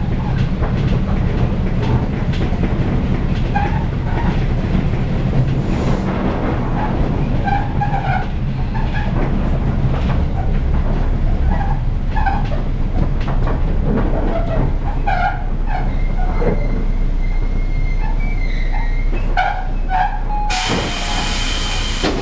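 Tobu 10000 series commuter car rolling and slowing, its wheels knocking rhythmically over the rails with extra thumping from flat spots worn into the wheels, over a steady running rumble. A thin steady squeal runs for a few seconds in the second half, and near the end a loud hiss of compressed air.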